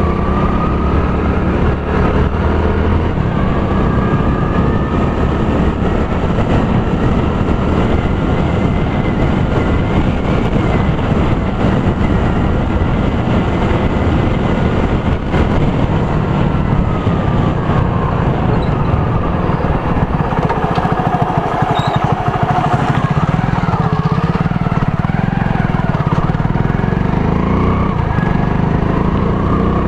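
Motorcycle on the move, heard through a helmet-mounted action-camera mic: the engine runs with a pitch that rises and falls, under a heavy rumble of wind and road noise.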